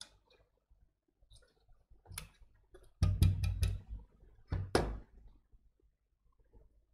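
Handling noise from a power supply circuit board being turned over and set down on a rubber work mat: a few scattered clicks, a quick run of knocks about three seconds in and one sharp knock just before five seconds.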